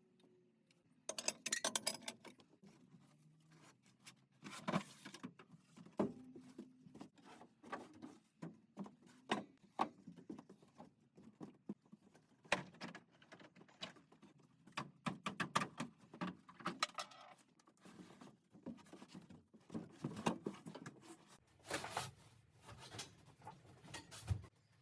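Irregular clatter, knocks and rustling of loose household items being handled and tossed out of a caravan's interior, in a small, boxy space.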